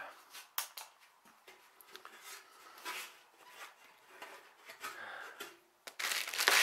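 Handling noise from a length of steel roof ridge cap: scattered light taps, scrapes and rustles as it is held and turned, then a louder burst of crinkling near the end.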